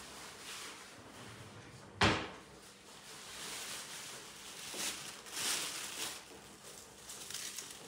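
A single sharp knock or thump about two seconds in, followed by quieter rustling and handling noises.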